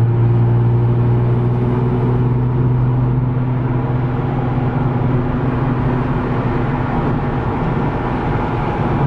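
2006 Hyundai Tiburon GT's V6 through a loud aftermarket cat-back exhaust, heard from inside the cabin while cruising in fourth gear. The exhaust makes a steady low drone.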